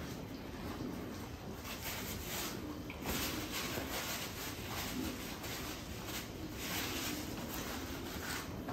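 Close-miked eating sounds of a man eating rice and chicken by hand: chewing and mouth noises in a loose rhythm of about two a second. Paper towel rustling as he wipes his mouth around the middle.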